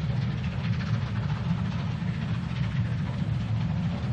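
Bulleid West Country class steam locomotive 34007 Wadebridge working a passenger train, a steady low rumble with a haze of exhaust and running noise over it.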